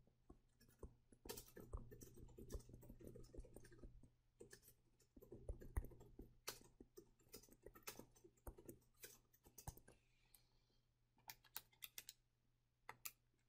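Faint, irregular clicks and taps of a stylus on a tablet screen during handwriting, with a little soft scratching between them.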